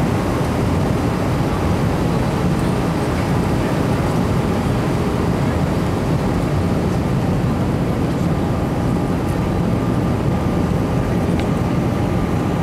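Steady noise of an easyJet Airbus A320-family airliner in flight: a deep jet-engine and airflow noise with a faint steady whine over it.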